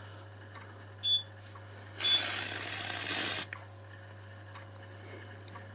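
Hiss of an aerosol spray lasting about a second and a half, starting about two seconds in, with a short click about a second in. This is typical of test smoke being sprayed into a smoke detector to set it off.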